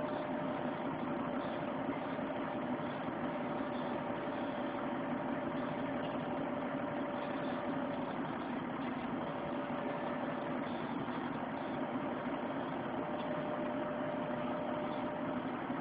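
Vehicle engine idling steadily, heard from inside the cab, with a faint steady whine over it.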